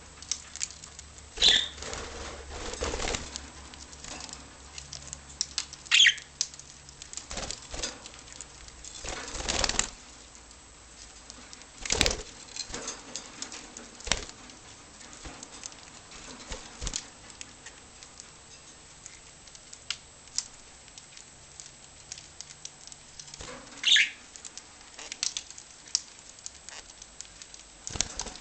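Pet budgerigars: three brief chirps spread through the stretch, with spells of wing flapping and light pattering and rustling, and one sharp click about twelve seconds in.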